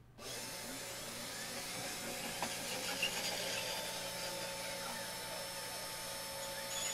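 The spindle motor of a 3018 desktop CNC router switches on abruptly and runs steadily, with the stepper motors whining in faint rising and falling glides as the machine moves its 1 mm ball-nose bit into position to start a finishing pass.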